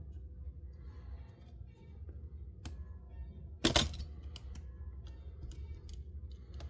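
Small clicks and taps of a screwdriver and hands working on a laptop's fan and heatsink screws, with one louder clatter about three and a half seconds in, over a steady low hum.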